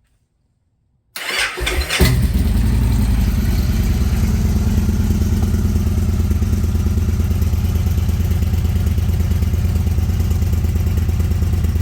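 Victory Judge's 106-cubic-inch V-twin being started through its stock, unmodified OEM muffler: about a second of cranking, the engine catches about two seconds in, then settles into a steady idle with a low rumble.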